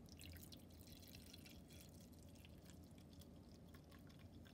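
Mixed baby formula pouring in a thin stream from a mixer pitcher's spout into a cup: a faint, irregular trickling patter.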